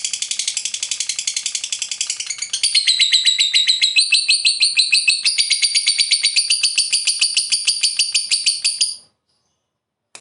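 Lovebird's long chattering trill (ngekek panjang): a fast, unbroken run of shrill, evenly spaced notes that steps up in pitch a few times, then cuts off suddenly about nine seconds in. A single short click follows near the end.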